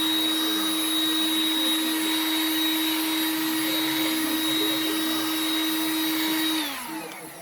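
Heat gun's blower running steadily, a rushing hiss with a constant whine. Near the end it is switched off and the whine falls away as the fan spins down.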